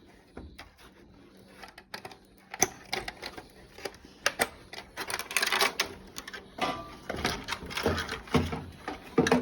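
Irregular clicks, knocks and light clatter of plastic parts and wiring connectors being handled and unplugged from a washing machine's control panel, sparse at first and busier from about two and a half seconds in.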